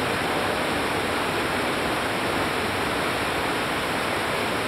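Steady rush of a river waterfall: white water pouring over a rock ledge, heard close up.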